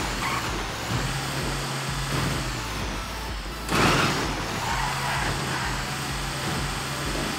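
A heavy vehicle's engine running steadily at low pitch, with a short loud burst of noise about halfway through.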